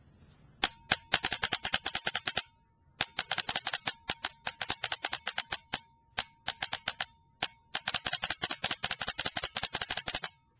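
Tippmann 98 paintball marker's electronic trigger firing in fast strings of sharp clicks, about ten a second, with a few short pauses between strings. A faint steady tone runs under the clicking.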